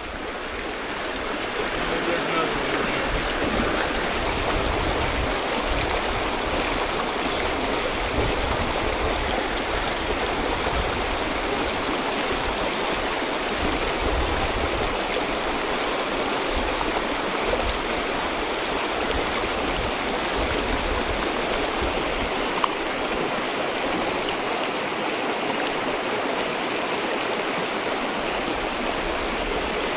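Small mountain creek running over a shallow riffle: a steady, even rush of flowing water, with a low uneven rumble underneath. One sharp tick comes about two-thirds of the way through.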